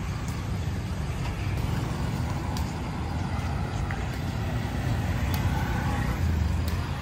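Street traffic: cars and motorbikes passing on a city road, a steady rumble that grows louder a little past halfway.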